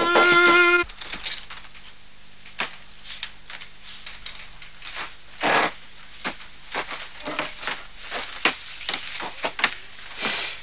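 Solo violin music ends about a second in. After that the room is quiet, with scattered small clicks and knocks and a few brief scraping sounds over a faint steady hum.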